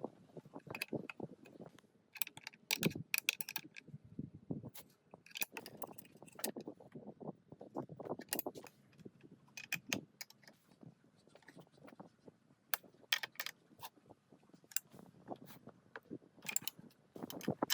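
Metal parts clinking and clicking against each other in irregular bursts, with a duller clatter underneath.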